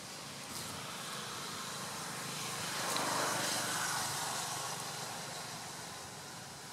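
A vehicle passing by: a steady rushing noise that swells to its loudest about three seconds in, then fades away.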